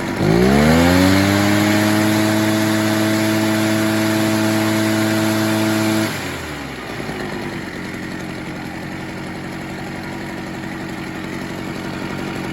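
Echo PB-403T backpack blower's two-stroke engine revving up quickly from idle, holding a steady high speed for about six seconds, then dropping back to idle. It is being run at high speed just after its high-speed carburettor screw was leaned to cure rich four-stroking.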